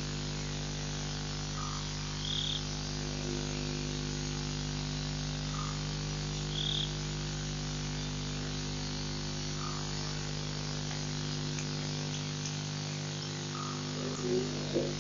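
Frogs calling at the waterhole at night: short calls every few seconds, some high-pitched and some lower, over a steady low hum. A brief wavering sound comes near the end.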